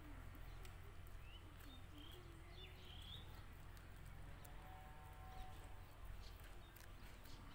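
Near silence: a low steady background rumble, with a few faint bird chirps in the first half.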